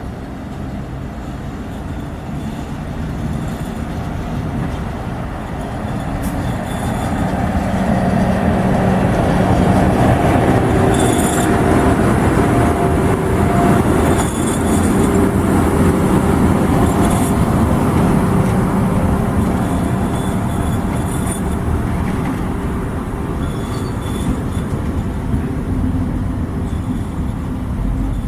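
A train passing, its dense rumble and a steady low hum swelling over several seconds, loudest midway and then slowly easing off, with short high hisses now and then as it goes by.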